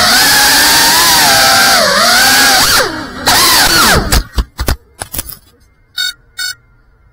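FPV quadcopter's electric motors whining, the pitch rising and falling with the throttle, until the drone crashes into the ground about four seconds in: a quick run of knocks and stuttering motor sounds, then the motors stop. Two short electronic beeps follow.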